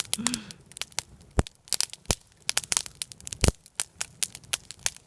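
Wood bonfire crackling: irregular sharp pops and snaps, several a second, with a few louder cracks, the loudest about three and a half seconds in.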